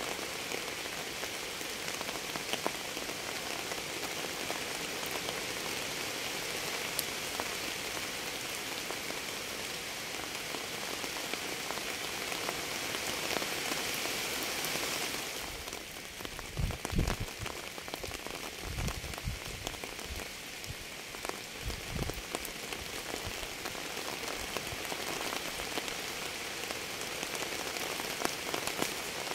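Steady rain falling on a surface, with scattered ticks of single drops. About halfway through the hiss eases a little, and a few short low thuds follow over the next several seconds.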